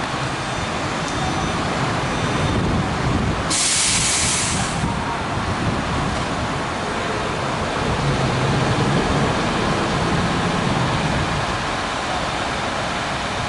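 Steady rumble and hiss of traffic on a rain-wet road. About three and a half seconds in, a sharp hiss starts suddenly and cuts off about a second later.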